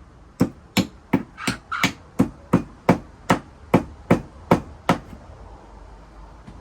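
Hammer tapping finishing nails into a wooden coop ladder: a steady run of about a dozen sharp strikes, roughly three a second, stopping about five seconds in.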